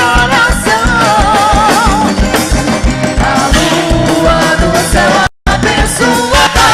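Quadrilha junina music: a loud forró song with a steady drum beat under wavering melody lines. The sound cuts out completely for a moment about five seconds in, then resumes.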